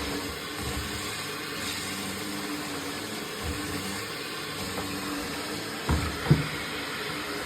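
Yadea Fairy10 robot vacuum running with a steady motor hum and hiss. Two short knocks sound about six seconds in.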